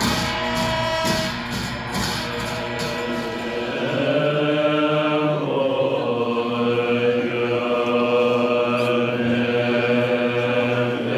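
Plucked-string music gives way, about four seconds in, to Tibetan Buddhist monks chanting together in low, sustained voices.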